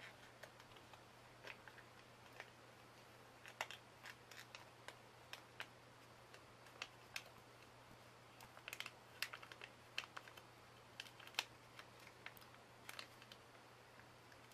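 Faint, irregular clicking, some clicks in quick little clusters, from a laptop hard disk drive seeking as Windows boots, over a low steady hum.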